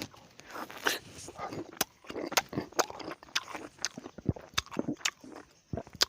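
A person biting and chewing lemon close to the microphone, with sharp mouth clicks and crunches at an irregular pace.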